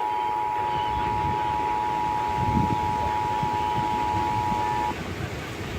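Emergency Alert System two-tone attention signal: steady tones near 853 Hz and 960 Hz sounding together over low background noise, cutting off suddenly about five seconds in.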